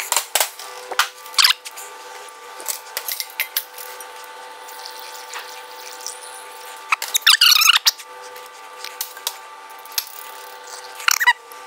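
Knocks and clatter of equipment being handled on a stainless steel workbench, with a stretch of shrill squeaking about seven seconds in, over a steady hum.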